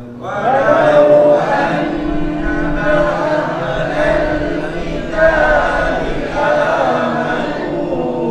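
A congregation chanting a Quranic verse together in unison, many voices overlapping in a drawn-out melodic recitation.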